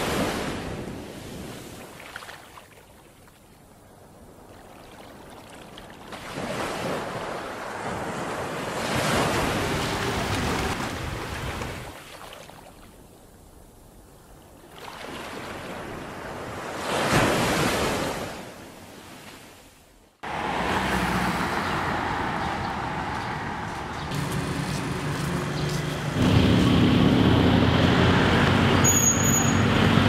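Sea surf swelling and fading as waves wash in and draw back, three slow surges. About two-thirds of the way through it cuts suddenly to steady street traffic noise with a low engine hum, which grows louder near the end.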